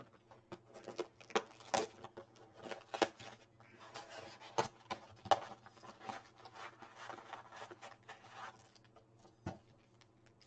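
Topps Holiday baseball card box and its packs being torn open by hand: crackling, snapping rustles of cardboard and wrapper for most of the time, then a single sharper knock near the end.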